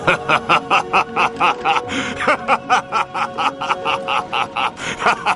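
Hearty male laughter, a rapid run of "ha-ha-ha" pulses at about four a second, over background music.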